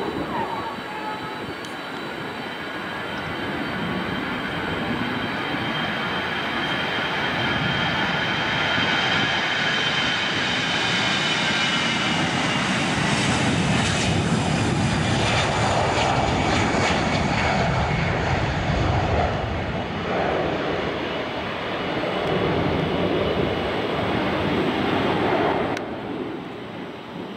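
Airbus A320 jet engines at takeoff power as the airliner rolls down the runway and climbs away: a steady rushing noise with a high whine that slides slowly lower, growing louder to a peak about halfway through, then dropping sharply near the end.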